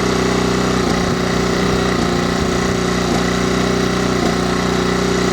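Small inverter generator's petrol engine running under a sudden full load of about 600 watts, its note dipping briefly about once a second as it tries and fails to take the load. The generator cannot cope with full load applied all at once.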